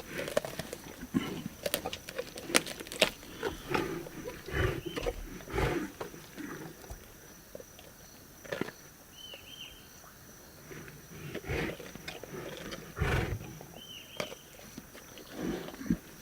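Lions feeding on a zebra carcass: irregular crunching, tearing and chewing, broken by low growls. The feeding is quieter for a few seconds midway.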